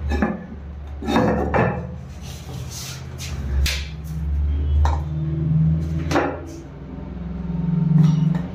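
A series of separate knocks and clatters from a toilet lid and ceramic cistern being handled, over a steady low hum.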